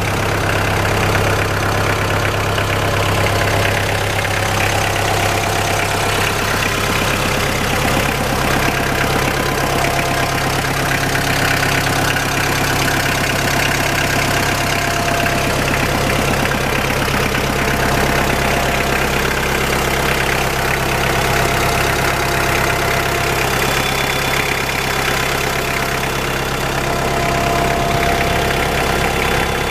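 Kubota L4240 tractor's four-cylinder diesel engine idling steadily.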